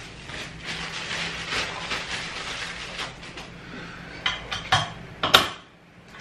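Gaming chair parts being handled during assembly: black plastic pieces rattle and rustle, then three sharp knocks or clicks come in the last two seconds, the last one the loudest.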